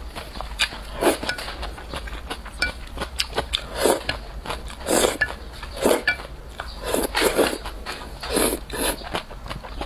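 Close-miked mouth sounds of a person eating noodles in a thick sauce. Wet slurps come about once a second, with many small chewing and lip-smacking clicks in between.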